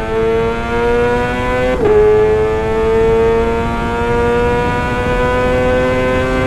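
Kawasaki ZX-25R's 250 cc inline-four engine through a Sportisi Motorsport SRX aftermarket exhaust, pulling hard at high revs with its pitch climbing steadily. A quick upshift about two seconds in drops the pitch, and it climbs again.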